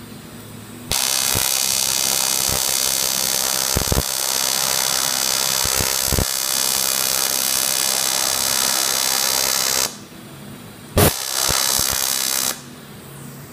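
TIG welding arc on thin sheet metal: a steady buzzing hiss that starts abruptly about a second in, runs for about nine seconds and cuts off, then strikes again with a sharp pop just after eleven seconds and burns for about another second and a half. The bead is run continuously at a fixed setting with no foot control, so the thin sheet gets hotter and hotter until the arc blows through it.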